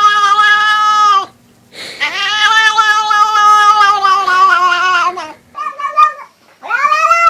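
Domestic cat yowling loudly in long, drawn-out calls: one ends about a second in, a second is held for about three seconds, then a short broken call, and another begins near the end.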